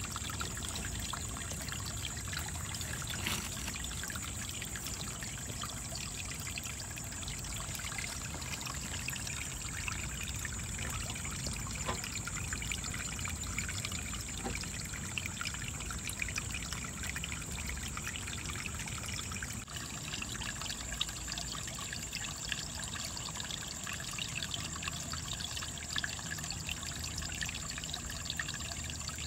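Running water, like a small stream trickling over stones: a steady, even rush with a thin, unchanging high whine along with it.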